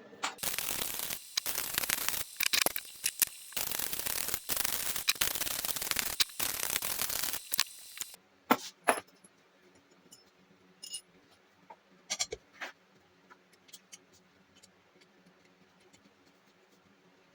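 Harsh scraping in uneven bursts with short breaks for about eight seconds, then stopping, followed by a few scattered sharp clicks and knocks.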